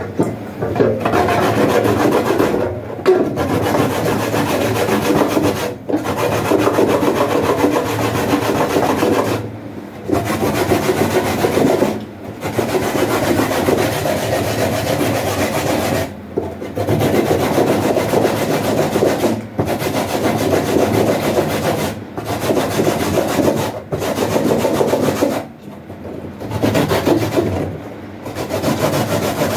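Coconut being hand-grated on a metal grater in a wooden frame: rapid back-and-forth rasping in runs of a few seconds, broken by short pauses.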